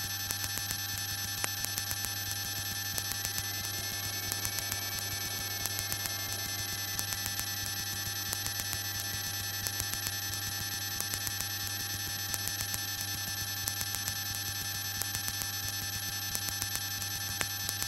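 Steady electrical hum with a fast, even ticking, the kind of interference heard on a light aircraft's headset intercom audio; a faint whine drifts up and back down in pitch for a few seconds near the start.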